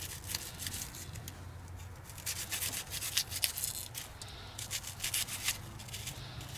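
Benchmade pocketknife blade slicing and scraping through an onion held in the hand: a quick, irregular run of crisp cutting strokes, several a second.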